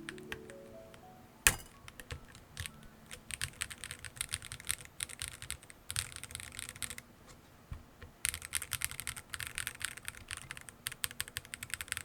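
Typing on an Akko YU01 resin-case mechanical keyboard: dense, rapid runs of keystrokes with a short pause in the middle, and one sharper clack about a second and a half in. A few rising notes of music fade out at the very start.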